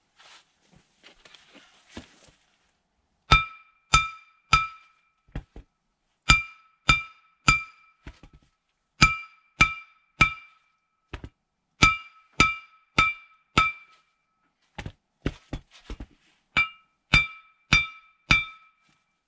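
Hammer blows ringing on the steel Stefa seal bushing of a Nuffield tractor's axle shaft, struck in runs of three or four about half a second apart with short pauses between. The hammering stretches the bushing until it comes loose.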